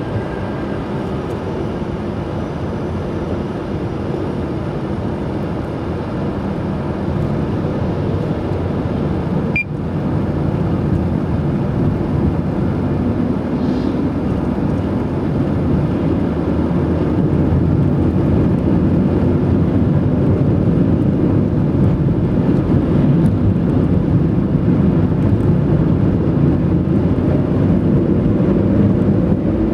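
Stock Bridgestone Turanza tyres on a Mitsubishi Lancer 9 whistling on the road surface, a steady whine like an aircraft over the road noise, growing gradually louder.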